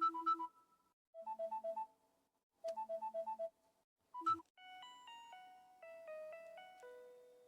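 LG phone's built-in ringtone and alert tones playing. A short electronic trill of quick repeated beeps plays in bursts about every second and a half, then about four and a half seconds in a different tone starts: a slower melody of clean electronic notes.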